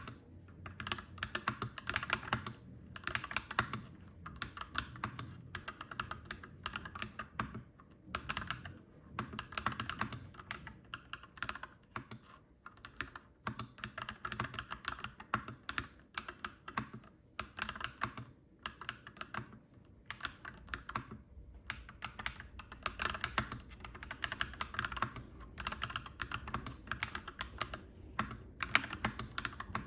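Clacky mechanical keyboard being typed on in runs of rapid keystrokes broken by short pauses, over a steady low background rumble.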